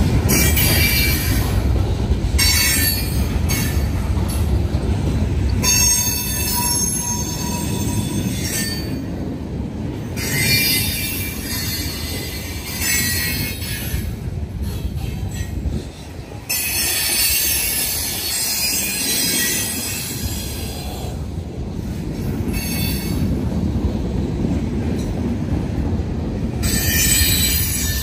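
Norfolk Southern freight cars, including autoracks, rolling past close by with a steady low rumble of wheels on rail. High-pitched wheel squeal comes and goes in several stretches.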